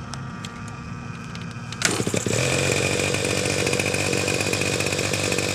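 Vintage Kalt Baron 50-size RC helicopter's two-stroke glow engine running, low at first, then much louder about two seconds in, with a steady high whine over a chainsaw-like buzz.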